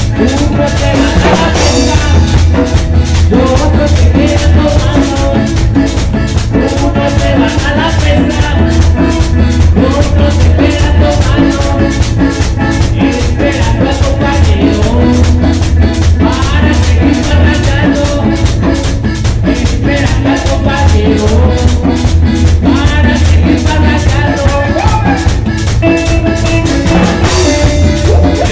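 A live Latin dance band playing, with male singing over electric guitar, congas, drum kit and shaken hand percussion keeping a steady, even beat.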